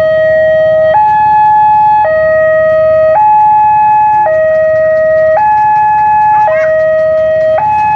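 Railway level-crossing warning alarm sounding a two-tone signal, alternating between a lower and a higher tone about once a second, warning that a train is coming and the barriers are down. A low rumble of road traffic runs underneath.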